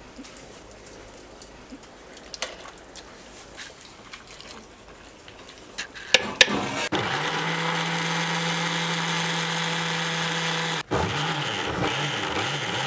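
Electric mixer grinder (Indian mixie) blending boiled tomatoes and cashews into a paste in its steel jar: the motor runs at a steady pitch for about four seconds, stops for a moment, then runs again in short surges. Before it starts there are light clicks and knocks as the mixture is spooned into the jar and the lid is put on.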